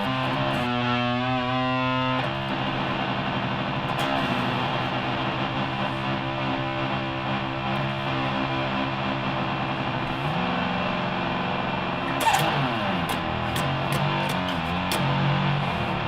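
Electric guitar played through a Line 6 multi-effect pedal with distortion: low notes held for several seconds each, changing a few times, with a sliding pitch about twelve seconds in.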